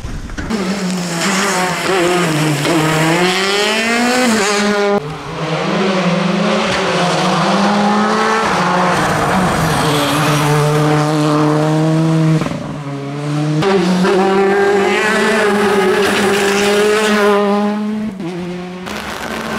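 Rally cars taking tarmac stage corners, their engines revving hard with pitch rising and dropping through gear changes, in several short clips cut together. In the middle stretch the car is a Hyundai i20 R5, a turbocharged four-cylinder rally car.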